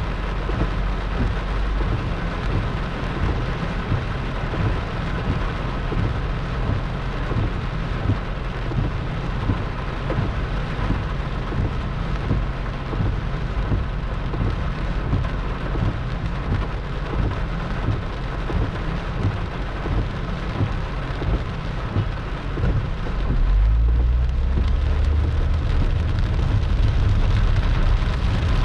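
Heavy rain pouring down and pattering densely on surfaces in a thunderstorm. About 23 seconds in, a deep low rumble swells and the sound grows louder.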